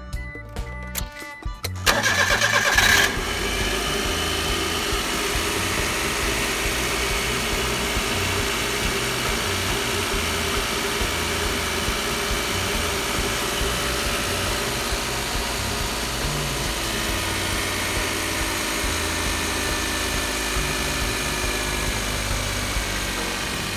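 Suzuki Carry DA63T kei truck's three-cylinder engine started about two seconds in, with about a second of starter cranking as it catches, then idling steadily.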